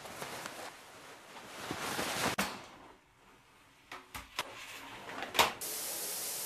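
Rustling with a sharp click, then a few clicks and a knock as a sliding glass shower door is pulled shut about five seconds in, after which the shower runs with a steady hiss of spray.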